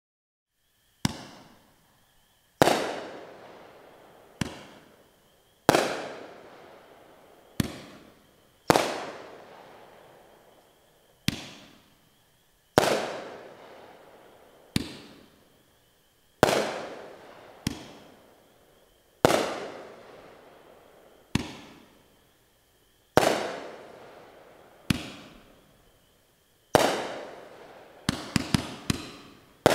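Black Cat Born Country 500-gram, 15-shot fireworks cake firing. Single sharp shots come every one to two seconds, each ringing away in an echo, and a quick rapid cluster of pops near the end.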